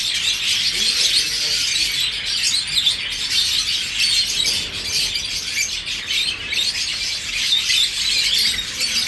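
Many small caged birds chirping at once: a continuous high twittering chatter.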